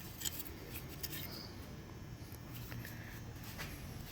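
Faint scattered clicks and scrapes of a small metal shield being worked loose from a transmission pan by hand, over a low steady hum, with a sharper click at the very end.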